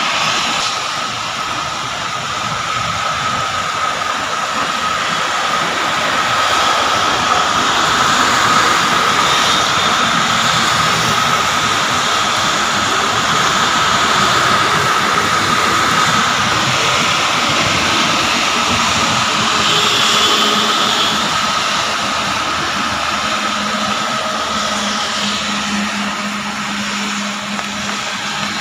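Heavy downpour: a dense, steady rush of rain, with a thin high steady tone running under it and a low hum joining near the end.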